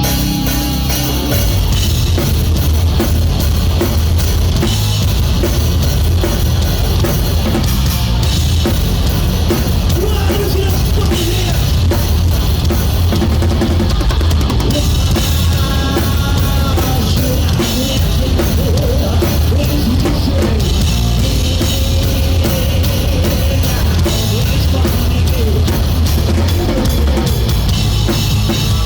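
Live rock band playing, with the drum kit loud and to the fore: steady bass drum, snare and cymbals driving the song over guitars and bass. The drums come in about a second in, after a guitar-led intro.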